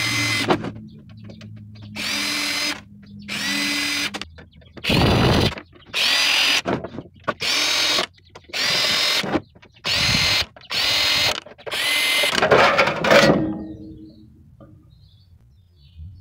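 Cordless drill/driver backing screws out of a sheet-metal equipment case: about ten short runs of the motor whine, each under a second, with brief pauses between, the last run a little longer.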